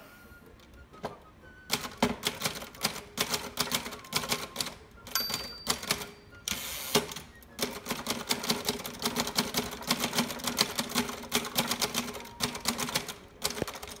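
1948 Remington Noiseless Model 7 typewriter being typed on: a quick run of soft keystroke clacks starting about two seconds in. Its type bars press against the platen rather than striking it, so it is quieter than a regular typewriter, but not completely noiseless. About five seconds in there is a brief high ring, followed by a short sweep of noise.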